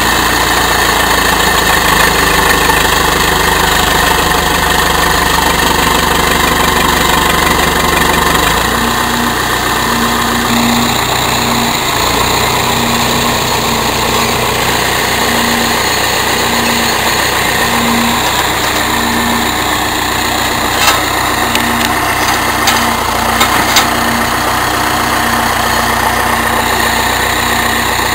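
Tractor engine running steadily. Its sound shifts about eight and twelve seconds in, and there are a few short, sharp knocks between about twenty-one and twenty-four seconds in.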